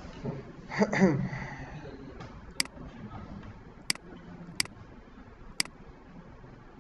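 Four sharp computer mouse clicks, about a second apart, picking points for a linear dimension in a CAD drawing. A brief vocal sound comes about a second in.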